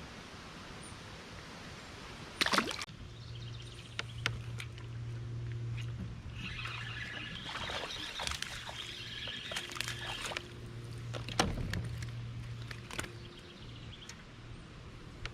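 Water sloshing and trickling around a kayak, with a steady low hum underneath and several sharp knocks, the loudest about two and a half seconds in and another near eleven seconds.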